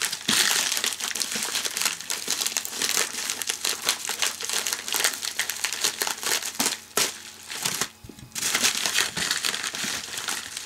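A USPS plastic mailer bag crinkling and rustling as it is handled and opened, with a short lull about three-quarters of the way through.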